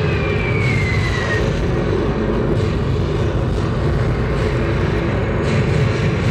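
Light show soundtrack over loudspeakers: a loud, steady low rumble of mechanical sound effects, with a short falling whistle in the first second or so.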